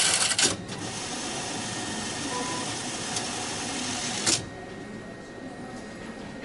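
Automatic currency exchange machine running its internal mechanism while it processes a dollar-to-yen exchange: a short loud burst at the start, then a steady whirring for about three and a half seconds that stops with a click.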